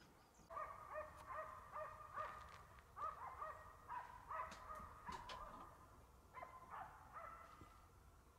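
Faint, distant hunting dogs barking and baying in a rapid run of short calls, with a pause about two-thirds of the way through before a few more. The dogs are giving tongue on a wild boar they have found.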